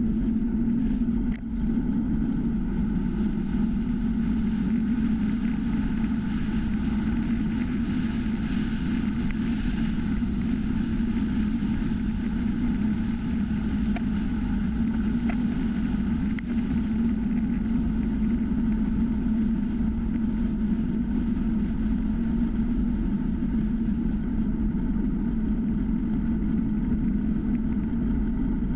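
Steady wind rush and tyre rumble from a time-trial bicycle rolling fast on asphalt, picked up by a bike-mounted GoPro 3, with a strong low drone. A couple of faint ticks come about halfway through.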